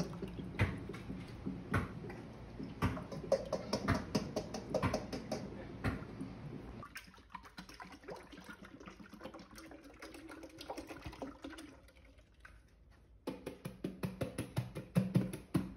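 Liquid ice cream mix poured from a steel bowl into a soft-serve machine's steel hopper, with many clinks and knocks of metal on metal. After a quieter stretch, water starts suddenly into a stainless kitchen sink about three-quarters of the way in, with rapid knocks as a plastic bottle is rinsed.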